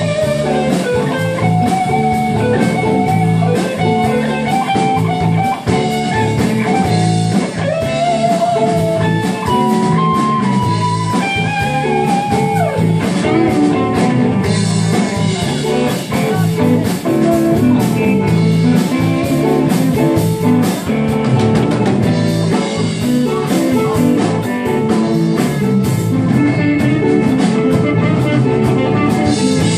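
Live blues-rock band playing an instrumental passage: an electric guitar lead with bent and wavering notes over electric guitar, bass and drums, recorded loud on a phone.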